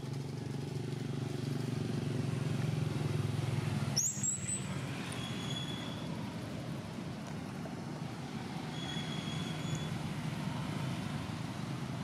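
A motor vehicle engine running as a steady low rumble, loudest in the first few seconds. About four seconds in there is a short high squeak, and later two faint thin high whistles.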